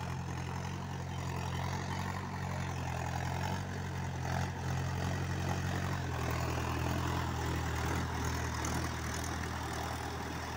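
Trakstar tractor's diesel engine running steadily as it drives cage wheels through a flooded paddy field. Its note shifts slightly about six seconds in.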